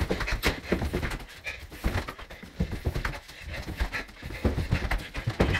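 Hurried footsteps going down a stairwell, irregular knocks and thuds, with heavy panting breaths.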